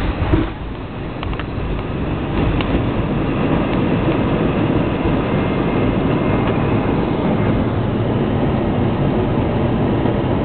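Airbus A320 cabin noise from beside the wing on the runway: a steady rumbling roar of the engines and rolling gear, with a short thump just after the start. The noise then grows louder over a couple of seconds and holds.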